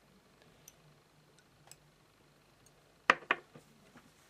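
Two sharp clicks in quick succession about three seconds in, over quiet room tone with a few faint ticks.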